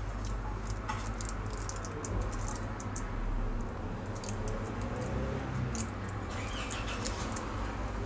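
Light scattered clicks and scratches from fingers handling and pressing on a phone's bare circuit board, over a steady low background rumble.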